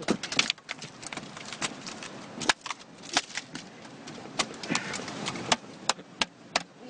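Irregular sharp knocks and clicks, a few each second, some in quick pairs, over a low background hiss.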